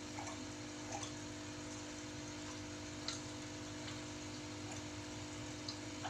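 Aquarium pump running with a steady hum and water trickling into the tank, with a few small drips about a second or two apart.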